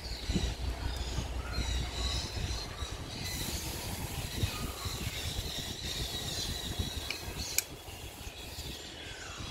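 Combination pliers working stripped earth wires, with one sharp click about seven and a half seconds in, over a low steady rumble and faint high chirping.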